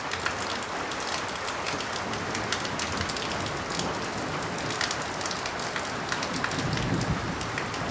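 Heavy rain pattering on a corrugated tin roof: a steady hiss full of sharp drop ticks, with water streaming off the roof edge.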